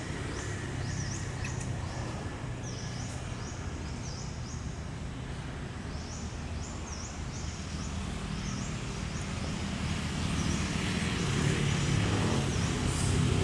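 Outdoor ambience: a steady low rumble of road traffic that grows louder about ten seconds in as a vehicle approaches, with quick high chirps repeating in short runs throughout.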